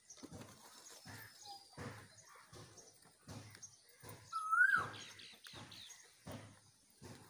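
A high animal call, held briefly then sliding up and dropping away, once about four and a half seconds in, over a run of soft low knocks roughly every half second and faint bird chirps.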